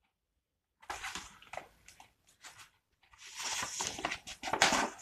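Paper rustling as the pages of a picture book are handled and turned: a short rustle about a second in, then a longer, louder one toward the end.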